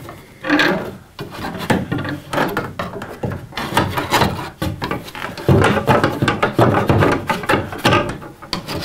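Electrician's fish stick scraping and rubbing against framing inside a wall bulkhead as it is pushed and worked around, probing for a path. It is meeting an obstruction, a dead end. The scraping comes in irregular strokes and grows louder about halfway through.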